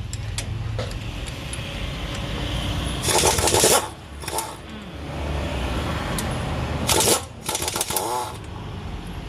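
Power wrench firing in three short bursts over a steady low hum while a front wheel hub is unbolted during a front wheel bearing replacement. The first burst, about three seconds in, is the longest; two shorter bursts follow close together about seven seconds in.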